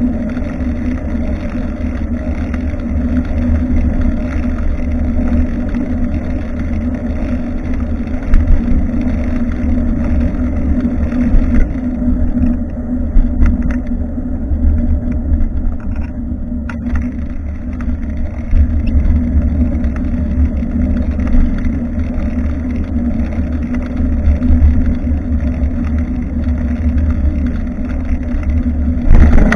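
Steady wind buffeting and road rumble on a bicycle-mounted action camera's microphone while riding, with a few brief knocks from bumps.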